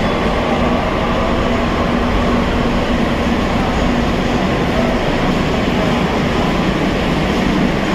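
Kolkata Metro train at a station platform: a steady, unbroken rumbling hum.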